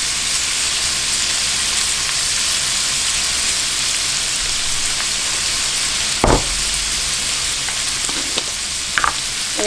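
Crumbled sausage and butter frying in a pan, a steady sizzle. There is a sharp knock about six seconds in and a lighter one near the end.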